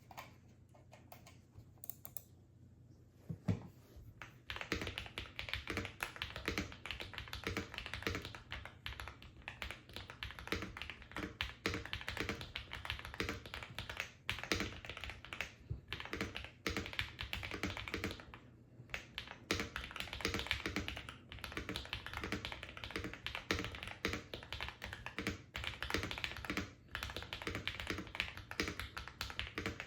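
Typing on a modded Feker IK75 mechanical keyboard with hand-lubed Akko Radiant Red linear switches: fast, continuous keystrokes with a few brief pauses. It starts about four seconds in, after a near-quiet stretch.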